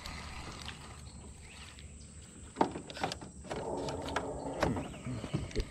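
A hooked bluegill thrashing at the surface beside the boat, splashing water for about a second just past the middle, with a few sharp clicks around it.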